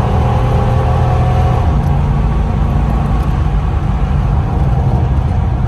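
C4 Corvette's V8 engine running as the car is driven, its note shifting in pitch about two seconds in; the engine is running right after its no-start and ignition tune-up were sorted.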